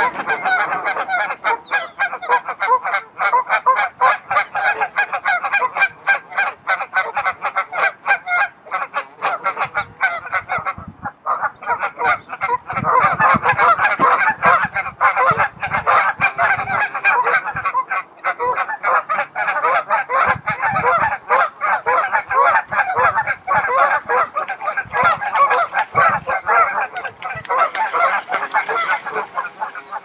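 A large flock of waterfowl calling continuously, with many short honking calls overlapping, and a brief lull about ten seconds in.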